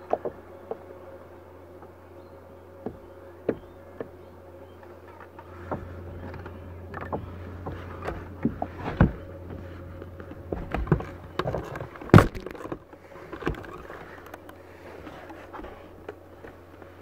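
Scattered small clicks and knocks of fishing line and tackle being handled aboard a kayak over a steady low hum; the clicks grow busier midway, with one sharp knock about twelve seconds in.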